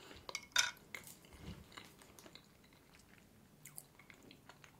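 A metal fork clicking against a dessert plate, loudest just over half a second in, with faint soft chewing of cheesecake.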